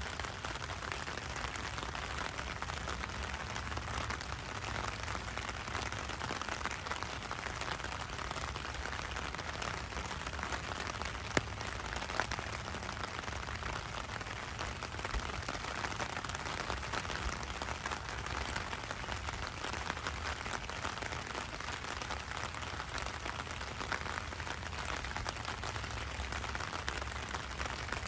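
Steady rain falling on wet street pavement, an even hiss without let-up, with a couple of sharp ticks about halfway through.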